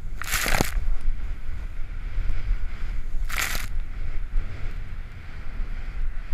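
Wind buffeting the camera microphone as a splitboard rides through powder snow, with two loud hisses of snow spraying from the board's edge as it turns, one near the start and one about three seconds later.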